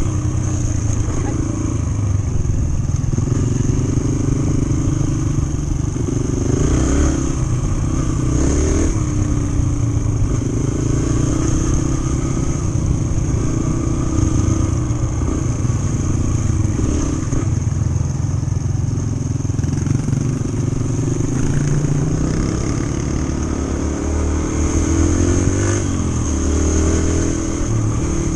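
Yamaha TT-R125's single-cylinder four-stroke engine running under way, heard from the bike itself. Its pitch rises and falls with the throttle, with several quick rises near the end as it revs up.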